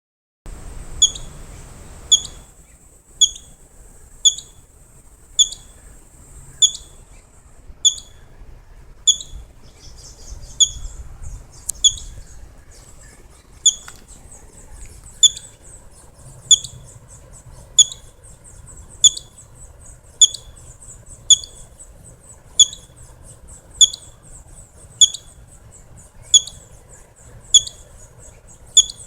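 Squirrel repeating a short, sharp, high call about once a second, over and over at an even pace, like hiccups.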